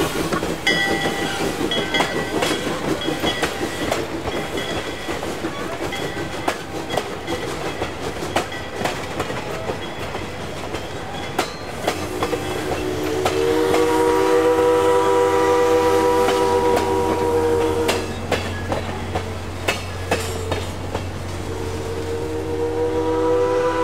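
Passenger cars rolling past, with wheels clicking over rail joints and rattling. About halfway through, the steam locomotive's whistle sounds a long blast of several notes at once, which stops about six seconds later; another blast starts near the end.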